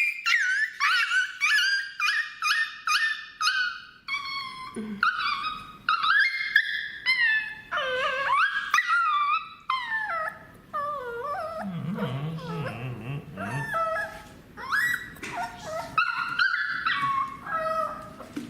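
Puppy whimpering and yelping in distress while its mango worm lumps are treated. A quick run of short, high-pitched cries, about three a second, comes first, then longer wavering cries.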